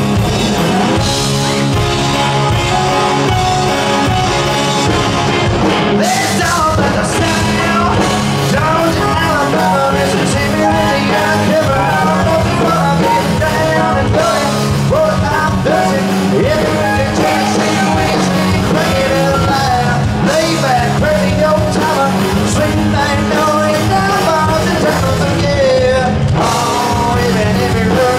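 Live country-rock band playing an instrumental break: electric guitars, bass and drum kit, with a lead melody bending in pitch over them through most of the passage.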